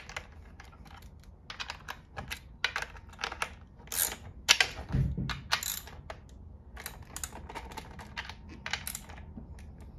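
Irregular metal clicks and scrapes of a wrench tightening down the bar nuts on a Husqvarna 460 Rancher chainsaw, with a heavier knock about five seconds in.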